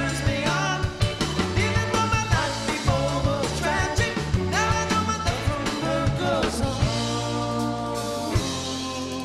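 Live rock band playing: a man singing over electric guitar, drum kit and keyboard. About seven seconds in, the singing gives way to a long held chord.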